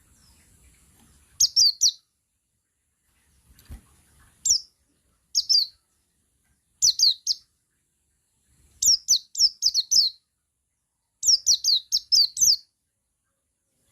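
Male buxtoni white-eye (pleci, an Oriental white-eye) singing: bursts of quick, high, down-slurred chirps repeated in short groups, with the longest runs in the second half.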